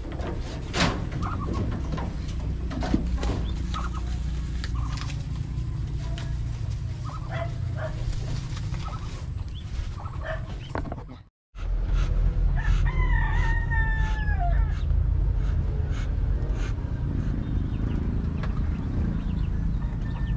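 A rooster crows once, a falling call of about two seconds a little past the middle, over a steady low rumble. In the first few seconds there are a few sharp wooden knocks as the bamboo slat door of the brooder is shut.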